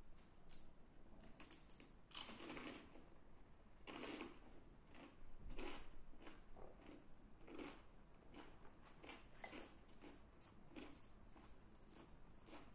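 Chewing and biting on chicken and garlic naan pizza close to the microphone: quiet, irregular short crackles and squishy mouth sounds, coming in clusters.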